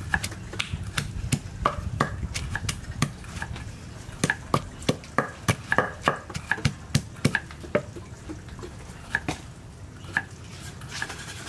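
Wooden pestle pounding chillies, garlic and shallots in a wooden mortar: a run of knocks about two or three a second, thinning to a few spaced strokes in the last few seconds.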